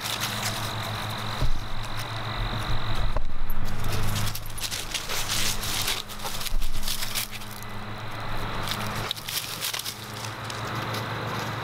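Dogs running and scuffling through dry fallen leaves on grass: irregular crackling and rustling of the leaves, loudest in two flurries in the middle. Under it is a steady high whine and a low hum.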